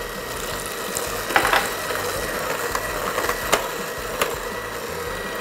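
Electric hand mixer running steadily, its wire beaters whirring through thick butter-and-egg cake batter in a glass bowl. A few sharp clicks come through as the beaters knock against the glass.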